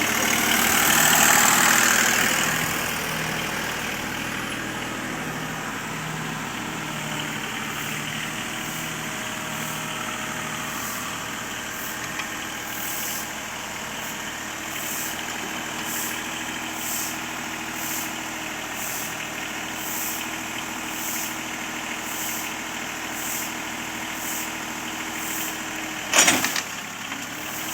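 Backhoe loader's engine running steadily, louder for the first couple of seconds, with a faint regular tick about once a second through the middle and a loud knock near the end.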